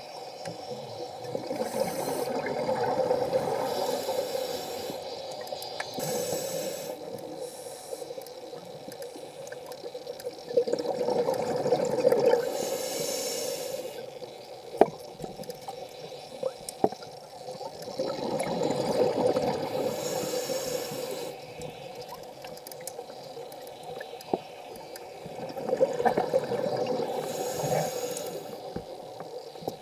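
Scuba regulator breathing heard underwater: four slow breaths about seven seconds apart, each a hiss followed by bubbling exhaust bubbles. A few sharp clicks near the middle.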